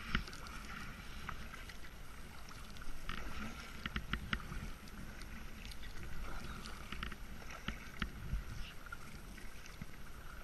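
Kayak paddle dipping into the water: soft splashes and drips off the blades, with scattered small ticks.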